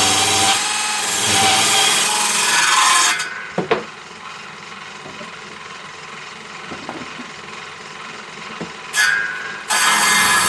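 Power saw ripping through timber: a loud, rough cutting noise that stops about three seconds in, followed by a couple of sharp knocks and a quieter stretch, before the cut starts again loudly near the end.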